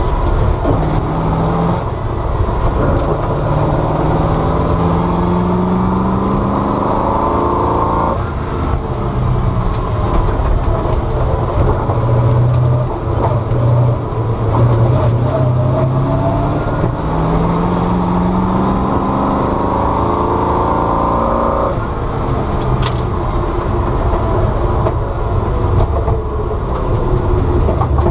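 Bizzarrini 5300 Strada Competizione's 5.3-litre naturally aspirated Chevrolet V8 driven hard at full throttle. The engine note climbs in pitch as it accelerates and drops suddenly about eight seconds in and again a little past twenty seconds, then climbs again each time.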